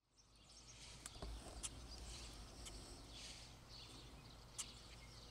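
Faint outdoor ambience fading in from silence: small birds chirping, with a few sharp clicks.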